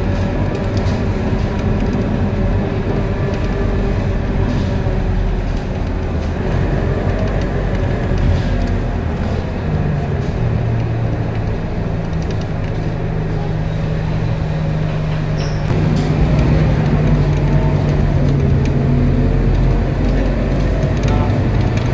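Scania K230UB bus's five-cylinder diesel engine and ZF Ecomat 6HP504C automatic gearbox running as the bus drives, heard from inside the cabin. A steady low drone joins about ten seconds in, and the sound steps up louder about sixteen seconds in.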